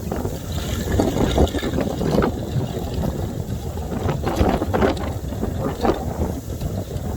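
Loose ice fragments sliding and tumbling back over a lake's ice sheet and into the water, giving an irregular run of tinkling, crackling clinks. Wind buffets the microphone underneath.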